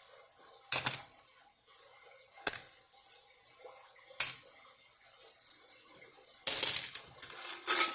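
Coins clinking as loose change is sorted by hand: three sharp single clinks about a second and a half apart, then a longer jingle of coins sliding together near the end.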